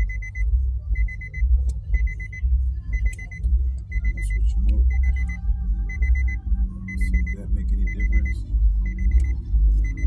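Infiniti G37's interior warning chime beeping steadily, a short high beep about once a second, over a low rumble and a few faint clicks of wires being handled.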